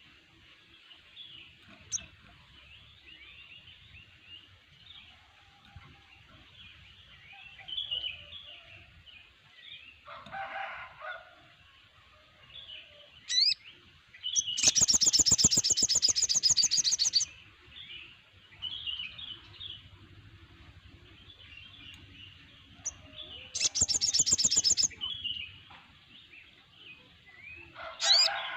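A chorus of many small songbirds, with steady chirping and twittering throughout. A loud, fast trilling song bursts out about halfway through for a couple of seconds and again near the end.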